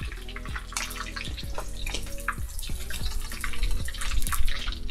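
Hot sunflower oil sizzling in a kazan where pork is being fried, with a steady hiss and frequent sharp crackles and pops.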